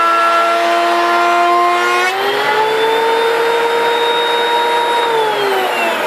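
DeWalt DW734 thickness planer running with a steady motor whine; about two seconds in its pitch steps up and the noise gets rougher, and from about five seconds the pitch falls away as the motor winds down.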